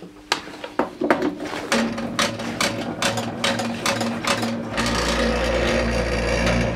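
Scanning club light starting up: its stepper-motor-driven mirrors rattle through their start-up indexing with a rapid run of clicks and a buzzing tone. About two-thirds of the way through, a steady low hum sets in and holds.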